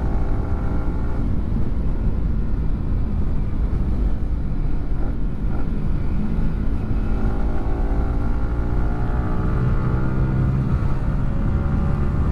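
Yamaha R15 V4's single-cylinder engine breathing through an aftermarket WRX GP3 exhaust, running steadily under way, its pitch rising slowly over the last few seconds.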